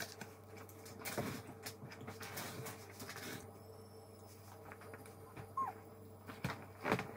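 Quiet sounds of a toddler eating finger food in a high chair: small clicks and rustles, and one short squeaky vocal sound, falling in pitch, about five and a half seconds in.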